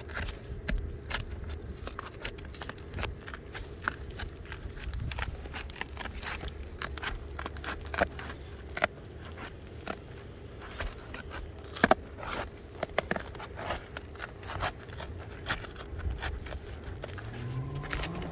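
Asphalt roof shingle being pried up from the shingle below, its sealant strip crackling and scraping in irregular clicks as the membrane rips. The tearing is the shingle's mat pulling apart at the adhesion strip (mat transfer), a sign the shingle cannot be removed without damage.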